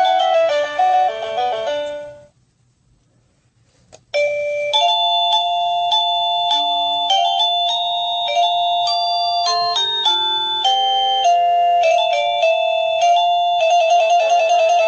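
Sadotech Model C wireless doorbell chime playing electronic melodies. One tune stops about two seconds in. After a couple of seconds of near silence and a click, a different tune starts and plays on.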